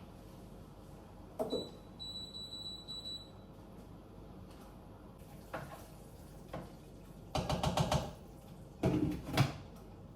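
Kitchen handling sounds: a knock, then a brief high steady tone, scattered clicks, a quick run of clicks and two louder knocks near the end.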